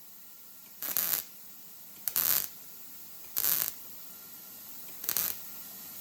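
Welder laying four short tack welds on thin steel car-hood sheet metal, each a brief crackling burst about a third of a second long, a second or so apart: stitching up a rust hole a little at a time so the panel stays cool and flat.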